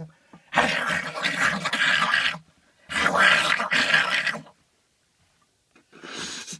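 A man voicing mock shark noises: harsh, breathy throat sounds, two long ones of about two seconds each and a shorter one near the end.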